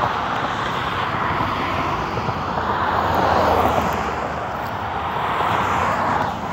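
Road traffic passing: car engine and tyre noise swelling to a peak about halfway through, rising again, then falling away near the end.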